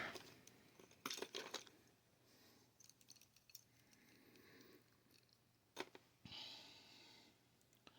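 Near silence with a few faint clicks and rustles of small plastic board-game plane pieces being handled, and one sharper click a little before the end.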